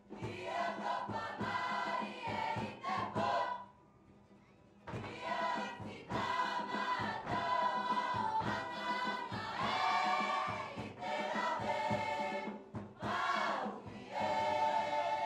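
A large Cook Islands performing group singing together in chorus, in short phrases with a brief pause about four seconds in.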